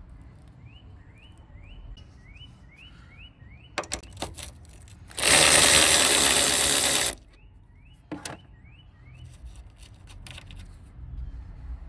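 Car suspension repair work: a few sharp metallic clicks and knocks, then a loud burst of hissing noise lasting about two seconds in the middle. Faint short rising chirps repeat a few times a second in the background.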